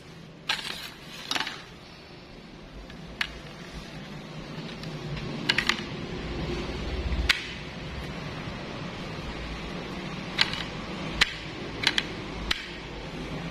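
Sharp clicks and snaps, about a dozen at irregular intervals, as a knife is pushed into and pulled out of a rigid plastic (kydex-style) sheath and handled over paper.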